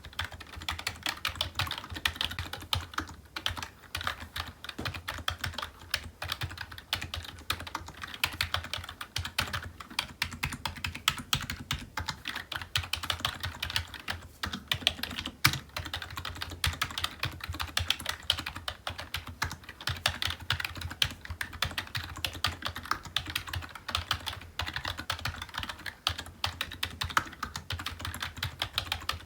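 Continuous fast typing on a computer keyboard: a dense, uneven stream of keystroke clicks with a low thud under each press.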